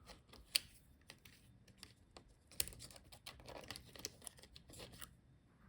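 Light, scattered clicks and scratches of small laptop internals being handled, as ribbon-cable connectors are unhooked from the HP EliteBook 840 G8 motherboard. One sharp click comes about half a second in, and a run of quicker clicks follows near the middle.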